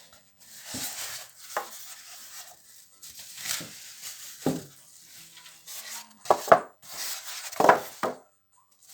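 PC case packaging being handled while the case is unpacked from its cardboard box: rustling and scraping, broken by several knocks. The loudest knocks come about six and a half seconds in and again near eight seconds.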